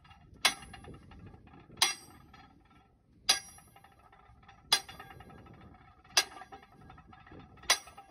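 Sledgehammer striking a steel flogging bar set through a Terex Pegson 1000 cone crusher's mantle nut: six hard metal-on-metal blows about a second and a half apart, each ringing briefly. The blows are knocking the nut loose after a groove was cut in the mantle to release the seat pressure on it.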